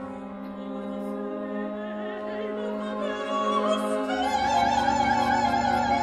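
Soprano singing with a contemporary chamber ensemble: bowed strings hold long, sustained notes, and about four seconds in low strings come in and the music swells, with a voice or strings wavering in wide vibrato above.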